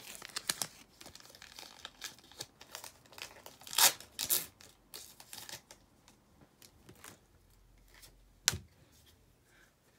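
Foil Pokémon booster pack crinkling and tearing as it is opened and the cards handled, with two louder rustling rips about four seconds in and a single sharp tap near the end.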